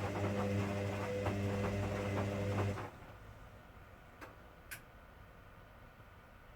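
Hoover Daily washing machine running with a steady hum and light ticks, which cuts off suddenly about three seconds in. Two short clicks follow about a second and a half later.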